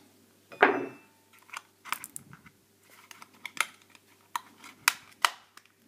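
Stiff plastic stylus packaging being pried and cracked open by hand: a string of irregular sharp crackles and clicks, with a louder crackle about half a second in.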